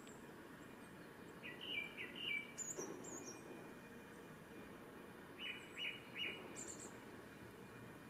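Male Japanese thrush singing: two phrases, each of three clear whistled notes followed by a very high, thin twitter, about one and a half and five and a half seconds in, over a steady faint background hiss.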